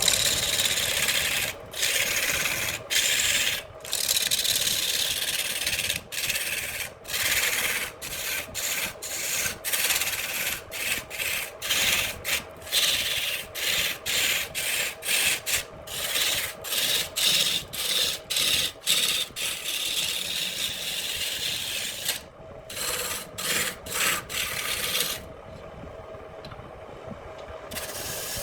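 Handmade wood lathe running while a tool scrapes the spinning branch wood in many short passes, about one a second at times. Near the end the cutting stops and only the lathe's steady hum remains.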